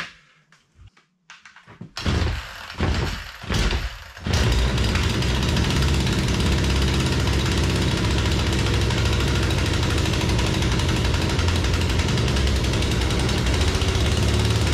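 Two-stroke engine of a 16-inch Poulan chainsaw being pull-started after sitting unused for a while. A few quick pulls on the starter cord come about two seconds in, and the engine catches just after four seconds and then runs steadily.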